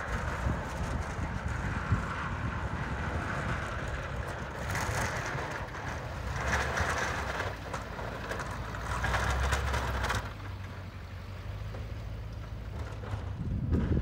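Pickup truck with a front-mounted snowplow running and pushing snow, a low engine rumble under a scraping hiss of blade and snow that surges several times and cuts off abruptly about ten seconds in.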